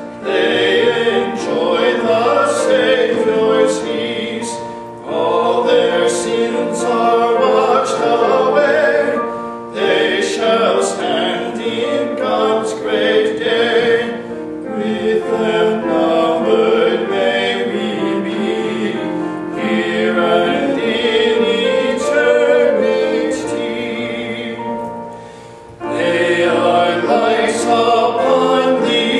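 Two men singing a hymn as a duet, in phrases with short breaths between them.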